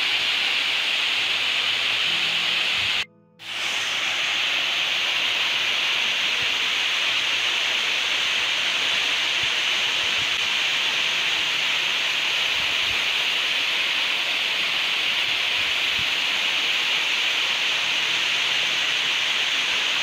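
Waterfall cascading over rock ledges: a steady rushing hiss of falling water. It cuts out for a moment about three seconds in, then resumes.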